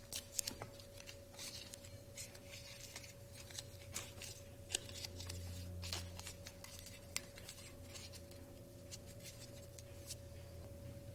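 Faint scattered clicks and light scraping from cardboard being handled and fitted around the helicopter's secondary drive shaft as a protective tube, over a steady low hum.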